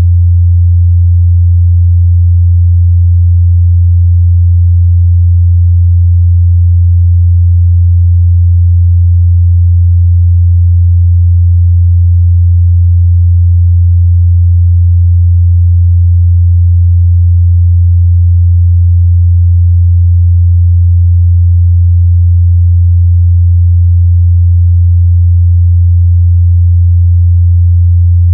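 A pure 87 Hz sine-wave test tone, a low, steady hum held at one pitch and one level.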